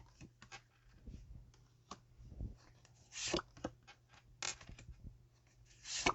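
Tarot cards being handled on a table: short swishes of cards sliding against each other, three times, with scattered soft clicks and taps.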